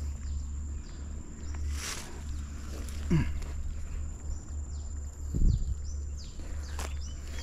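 Riverbank ambience: a steady high insect drone with many short, falling bird chirps, over a low rumble. Close by, rustling and two dull thumps, about three and five and a half seconds in, as a fish is handled into a keep net.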